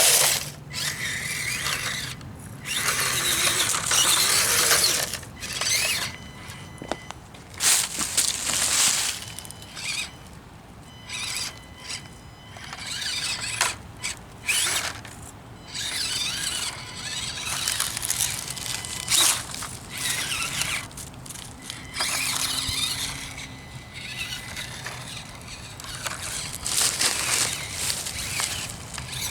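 Axial SCX24 micro RC crawler's small electric motor and gears whining in repeated stop-start bursts of throttle while it climbs a steep boulder.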